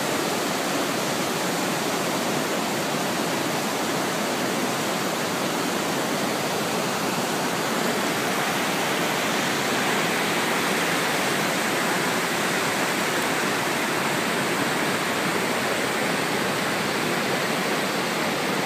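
Steady rushing of white water on the Iguazu River at the falls, with rapids and cascades running at full flow.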